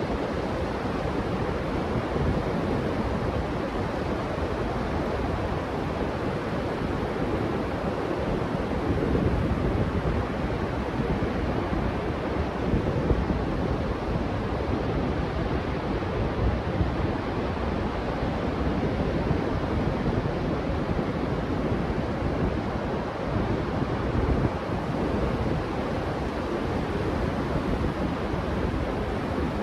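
Steady Pacific surf washing on the beach, mixed with wind rumbling on the microphone.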